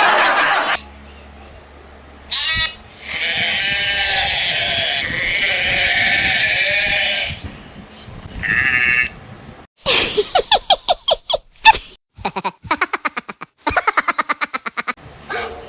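Bleating sound effect played back: a short bleat, then one long wavering bleat and another short one. It is followed by a separate clip of rapid short pulses, about ten a second, that stops and starts.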